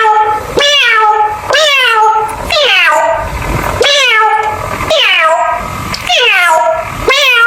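A run of repeated meow calls, about one a second, each one rising briefly and then sliding down in pitch.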